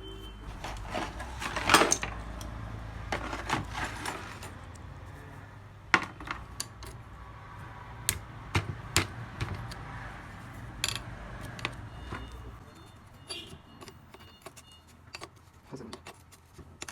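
Metal parts and tools clinking, tapping and knocking on a workbench in irregular sharp strikes, with a low steady hum that stops about two-thirds of the way through.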